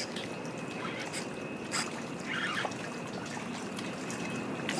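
Small waves lapping and trickling against the mangrove shoreline, with a few short sharp clicks.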